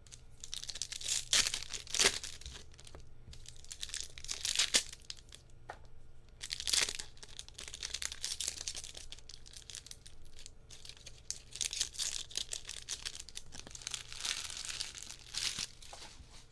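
Plastic trading-card pack wrappers being torn open and crinkled by hand, in repeated rustling bursts with sharp crackles.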